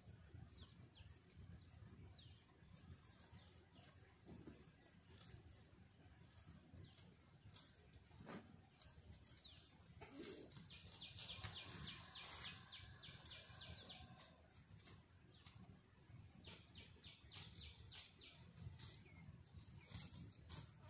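Faint outdoor ambience: scattered short bird chirps over a steady high-pitched whine, with a denser flurry of chirps and rustle about halfway through.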